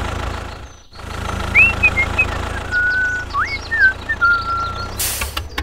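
Tractor engine running with a steady low chugging, dropping out briefly about a second in. A few whistled notes slide up and down over it in the middle, and a short burst of hiss comes near the end.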